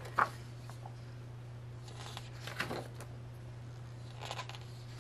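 Photo book pages being handled and turned: a sharp paper rustle just after the start, then softer rustles about two and a half and four seconds in, over a steady low hum.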